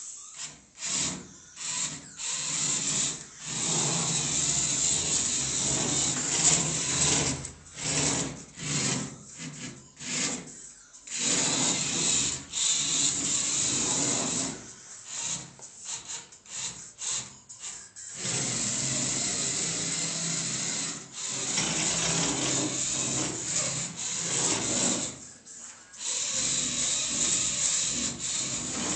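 Small electric drive motors of a homemade wheeled robot whirring in stop-start bursts as it drives and turns: many short spurts at first, then longer runs of several seconds with brief pauses.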